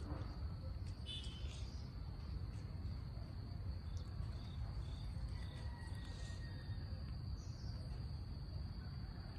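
Steady high-pitched insect trill, typical of crickets, over low background rumble, with a few faint clicks.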